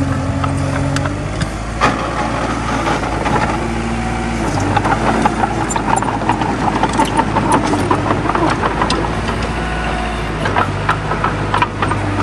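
Komatsu D20A bulldozer's diesel engine running steadily under load, with its note shifting a couple of times and a busy clanking and rattling from about four seconds in and again near the end.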